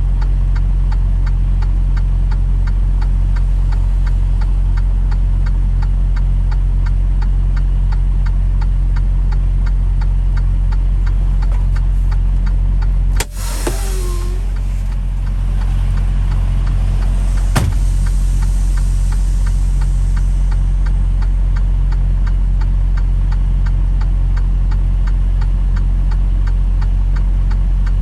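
Vehicle engine running steadily at low speed while manoeuvring, with a faint regular ticking. There are two sharp clicks, one about halfway through and one a few seconds later.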